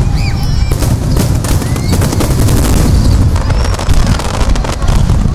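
Star mine fireworks barrage: many aerial shells bursting in quick succession, the booms and crackling overlapping without a break. A few short whistles rise through them.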